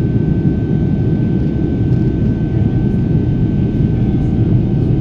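Jet airliner cabin noise during the climb after takeoff: a steady deep rush of engine and airflow, with a thin high-pitched whine held on one note.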